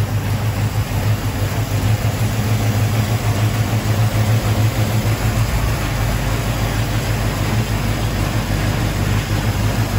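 Big-block 440 V8 in a 1974 Plymouth Duster idling steadily.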